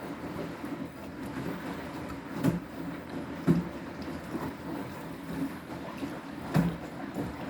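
Washing machine drum turning through a rinse with two pillows inside: a steady low running noise, with a few dull thumps as the load drops inside the drum.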